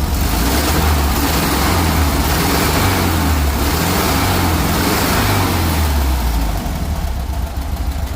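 Volkswagen Beetle's air-cooled flat-four engine running with a deep exhaust rumble, freshly rebuilt and tuned. The sound swells a little in the first few seconds, then drops to a quieter idle about seven seconds in.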